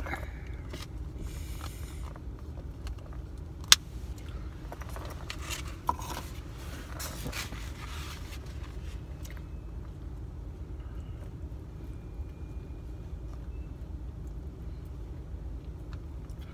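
Takeout food packaging being handled: rustling and scraping with a sharp click about four seconds in and a smaller one about two seconds later, over a steady low rumble. The second half is quieter, with only faint scrapes.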